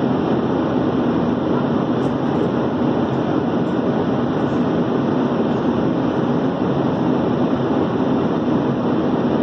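Steady rush of engine and airflow noise heard inside the cabin of a Boeing 737-800.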